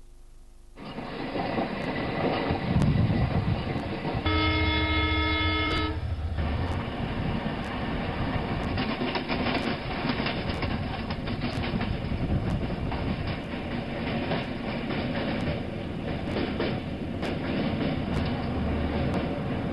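Indian Railways passenger train running, its wheels clacking over the rail joints. Its horn sounds once, a steady blast of several tones lasting nearly two seconds, about four seconds in.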